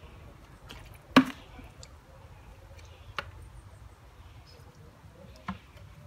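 A few short, sharp knocks and splashes, the loudest about a second in, from a long-handled net being worked through a garden pond to scoop out fallen leaves.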